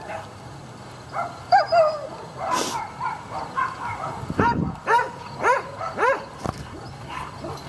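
Dogs barking at play, a couple of barks early on, then a run of about four barks roughly half a second apart.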